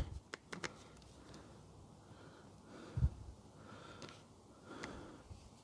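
Faint handling sounds over quiet room tone: a few light clicks and a dull low thump about three seconds in.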